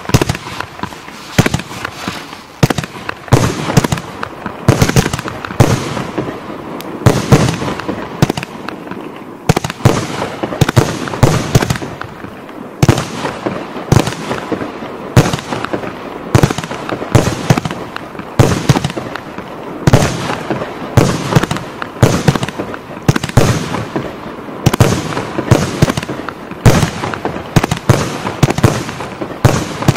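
E525G 'Element G' compound fireworks battery firing continuously: a dense run of launch thumps and sharp bangs, several a second, with no break.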